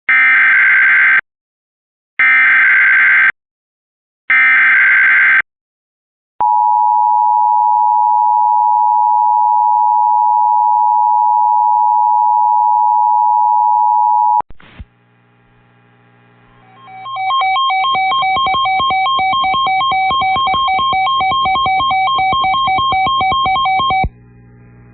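Emergency Alert System tornado warning opening: three one-second bursts of raspy digital data tones (the SAME header) with short gaps, then a steady electronic attention tone held for about eight seconds. After a brief pause, several seconds of pulsing electronic tones follow.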